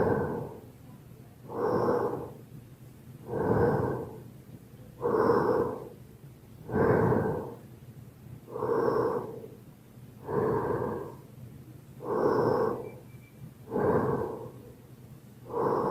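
Michael Myers' heavy breathing sound effect: slow, even, heavy breaths, about ten of them, one every second and a half or so.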